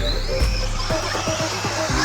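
Background electronic music with a fast, steady beat.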